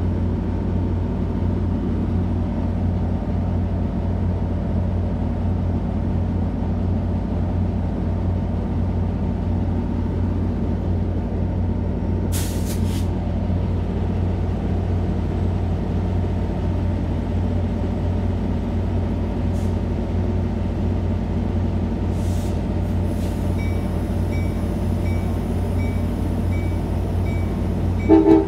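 Amtrak California passenger diesel locomotive standing at the platform, its engine running with a steady low hum. A short hiss of air comes about twelve seconds in. A high beep repeats at an even pace near the end, and a brief louder burst of tones comes at the very end.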